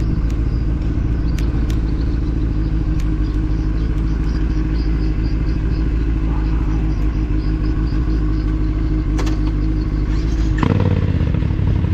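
Motorcycle engine running at low speed and idling, a steady rumble of even tones. About ten and a half seconds in, the engine note changes suddenly, with a brief clatter.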